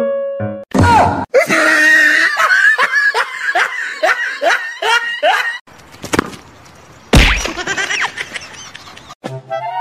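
Loud laughter, a quick run of rising 'ha' sounds at about two or three a second, starting right after a short sudden outburst. A loud thump comes about seven seconds in.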